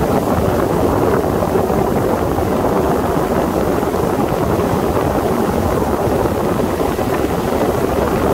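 Sea Ray 21 motorboat under way at speed: a steady rush of engine, hull and water noise mixed with wind buffeting the microphone.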